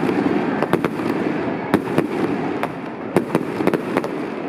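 Aerial fireworks going off: an irregular run of sharp bangs and crackles, over a dozen in a few seconds.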